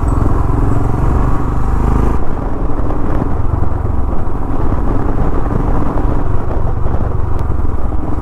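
Royal Enfield Himalayan's single-cylinder engine running steadily while riding, heard from the rider's seat. The sound changes abruptly about two seconds in, where the footage cuts to another stretch of road.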